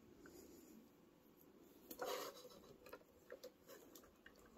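Faint handling of hard plastic toy pieces being fitted onto a Megazord figure: a brief scrape about two seconds in, then a few light clicks.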